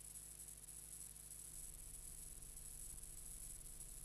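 Near silence: steady tape hiss and a low electrical hum on a silent film's empty soundtrack.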